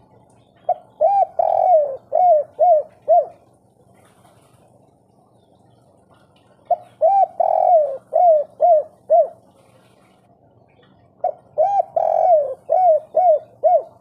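Spotted dove (tekukur) cooing its 'kuk 3' song three times. Each phrase is about six rounded coos: the third is drawn out, and the phrase ends in three short notes.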